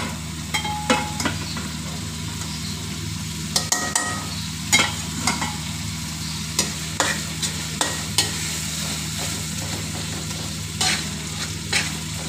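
Minced meat and tomato masala sizzling as it fries over high heat in a metal pan. A slotted metal spatula scrapes and knocks against the pan at irregular moments as it is stirred.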